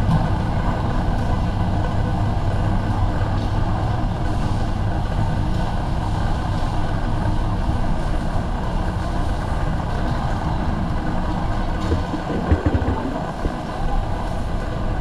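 Steady ambient din of a crowded warehouse store: a constant low hum under a wash of indistinct shoppers' noise, with a couple of brief knocks about twelve seconds in.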